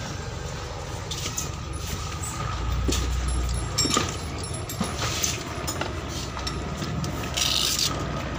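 Boat engine running with a steady low drone, under scattered clicks and rattles of scuba gear being handled: hoses, buckles and fittings on a tank-mounted BCD and regulator. A brief hiss comes about seven and a half seconds in.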